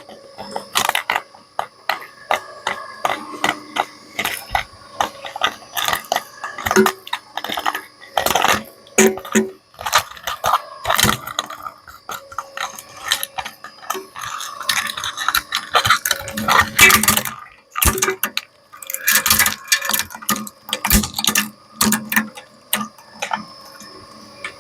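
Industrial shredder tearing up a hair dryer: a dense, irregular run of sharp cracks and snaps as its plastic and metal parts break, under a faint steady tone. The cracking is heaviest about two-thirds of the way in.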